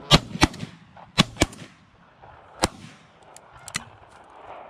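Shotgun shots from two hunters firing at a flock of geese overhead, one using an over-and-under shotgun: five loud blasts in about two and a half seconds, mostly in quick pairs, then a few faint clicks.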